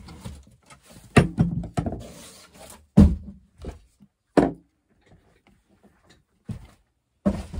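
A cardboard box being closed and shifted on a wooden table: a brief scrape and a series of sharp thuds and knocks, the loudest about a second in and again about three seconds in. A few softer knocks follow near the end as she gets up from her chair.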